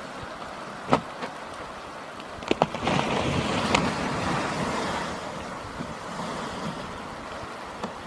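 Iceberg rolling over in the water: a rushing wash of water and ice from about three seconds in that eases off after two or three seconds, with a few sharp cracks before and during it, over steady wind and water noise.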